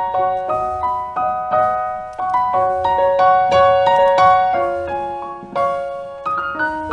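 Background piano music: a slow melody of struck notes, each ringing out before the next.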